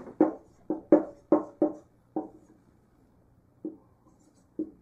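Dry-erase marker writing numbers on a whiteboard: a quick series of short squeaky strokes, about six in the first two seconds, then a pause and two more near the end.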